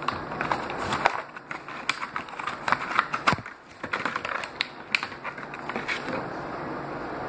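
Littlest Pet Shop toy packaging being worked open by hand: irregular crackling, clicking and crinkling, densest in the first six seconds, then settling to a steady hiss.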